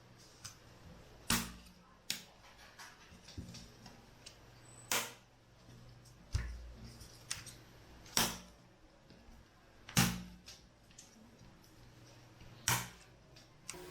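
Sharp clicks and knocks, about six loud ones a couple of seconds apart with fainter taps between, as the laptop's bottom cover is handled and pressed back into place on the chassis.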